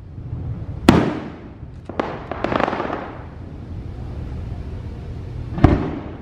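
Aerial fireworks going off: a sharp bang about a second in and another at two seconds, followed by a burst of crackling, then a loud bang near the end.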